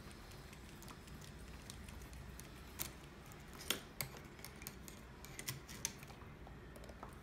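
Faint, scattered metallic clicks and taps of small hand tools, needle-nose pliers and a 2.5 mm hex driver, working the grub screw and pin at the end of a 1/8-scale RC truck's front driveshaft.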